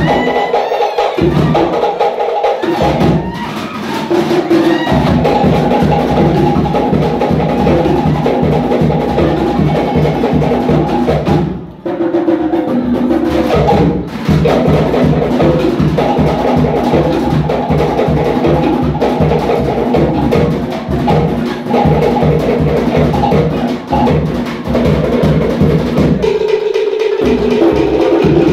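Cook Islands drum ensemble playing a fast, driving rhythm of sharp wooden strikes on slit log drums over a deeper skin drum, the beat for a drum dance, with a short break near the middle.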